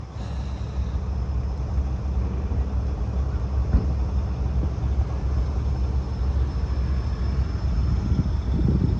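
Chevrolet Avalanche engine idling with a steady low rumble, with a single knock about four seconds in.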